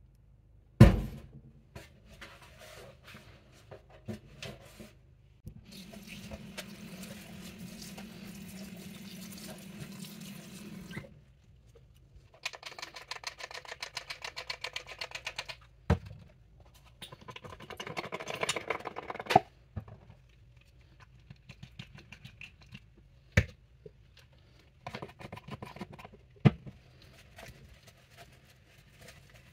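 Hands-on cleaning sounds: several bouts of rapid scrubbing strokes, one stretch of steady hissing, and a few sharp knocks, the loudest a little under a second in.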